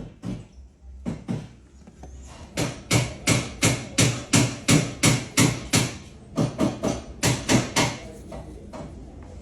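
A series of sharp knocks, like hammer blows, about three a second, coming in several runs with short pauses between them.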